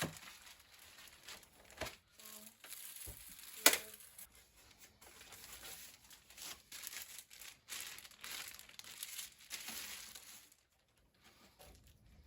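Crinkling and rustling of packaging as it is handled and pulled apart, in irregular swishes, with a few sharp clicks; the loudest click comes about three and a half seconds in, and the rustling stops about ten and a half seconds in.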